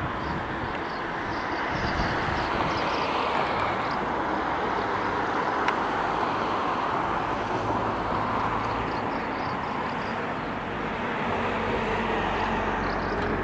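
Steady wash of outdoor town noise from road traffic, with no single sound standing out.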